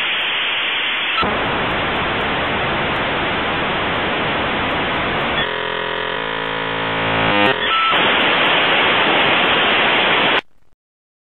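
Dial-up modem handshake. A loud hiss of static, then a stretch of many steady tones about halfway through, then static again, which cuts off suddenly near the end as the modem connects and falls silent.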